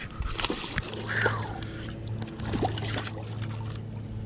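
Steady low hum of the boat's motor, with water splashing and a few sharp knocks as a big blue catfish is fought close to the boat.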